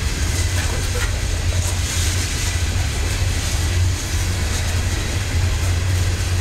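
Coal hopper cars of a freight train rolling past, their steel wheels on the rail making a steady rolling noise with a few faint ticks.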